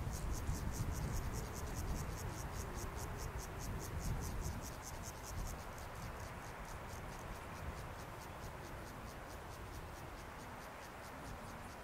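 An insect chirping in a fast, even, high-pitched pulse that grows fainter in the second half, over a low wind rumble.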